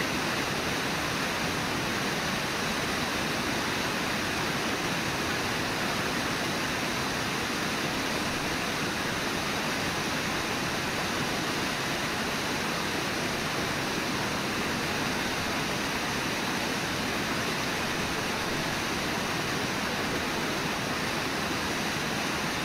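Steady rush of river whitewater cascading over and below Brooks Falls, an even, unbroken wash of water noise.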